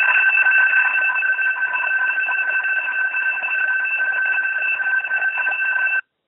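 Sellafield site fire alarm sounding continuously with a steady high-pitched tone, heard over a telephone line, cutting off suddenly about six seconds in.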